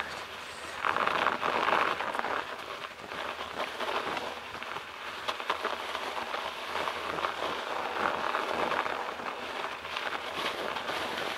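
Bicycle tyres rolling through snow on a rough track: a steady crunching hiss dotted with fine crackles, loudest about a second or two in.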